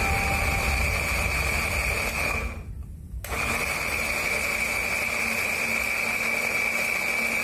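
Electric countertop blender running steadily, grinding a thick paste of red chilies, shallots, garlic and tomato, with a high steady whine over its motor hum. It cuts out briefly about two and a half seconds in, then runs again.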